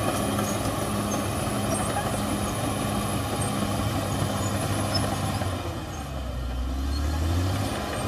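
Caterpillar D6R XL crawler bulldozer's diesel engine running steadily as the dozer works its blade through soil. About six seconds in, the engine note dips lower and then climbs back up.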